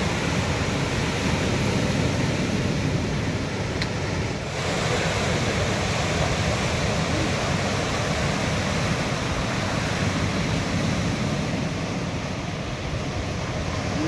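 Ocean surf breaking and washing onto the shore, a steady rushing noise heaviest in the low range, with a brief dip about four seconds in.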